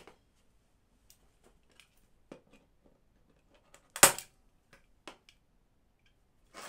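A hand staple gun fires once with a sharp snap about four seconds in, driving a staple through a clear plastic strip into the plywood to clamp an epoxy-glued joint. A few light clicks of the tool being handled and set down on the board come before and after.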